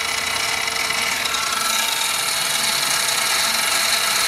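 Central Machinery mini milling machine running, its spindle motor giving a steady whine while the Arduino-driven stepper motor traverses the table back half an inch at a faster feed after the cut. The sound brightens about a second and a half in.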